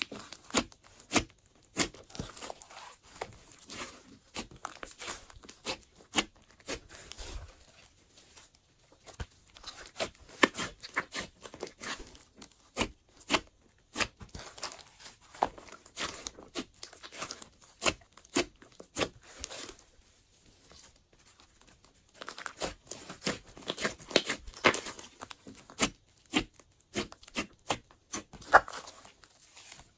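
Glossy slime being kneaded and stretched by hand, giving irregular sticky pops, clicks and crackles, with two brief lulls.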